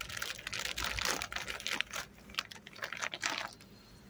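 Clear plastic hive cover sheet crinkling and crackling as it is peeled back off the wooden top bars of the frames, in quick irregular crackles that die away near the end.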